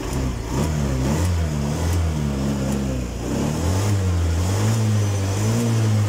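Honda automatic scooter's single-cylinder engine being revved on the stand, its pitch rising and falling in short throttle blips, held higher for a couple of seconds in the second half.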